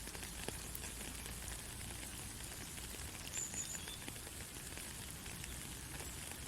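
Soft rain falling steadily, an even hiss of drops with scattered light ticks.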